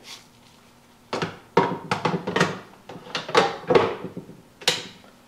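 Plastic knocks and clatters of a filter basket being slotted into a drip coffee maker, ending in one sharp click near the end as it snaps into place.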